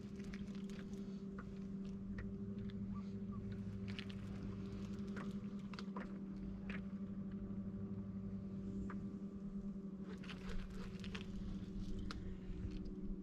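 Light, irregular clicks and taps of fishing tackle being handled while a hooked fish is reeled in, over a faint steady hum.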